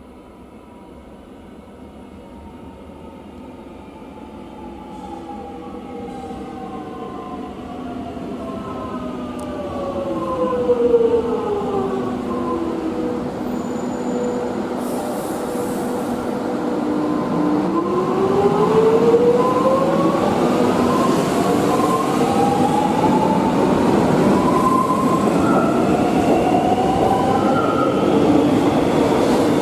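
Electric suburban train's traction motors whining, a stack of tones that falls in pitch as the train slows, then climbs again as it picks up speed. The train sound grows steadily louder throughout.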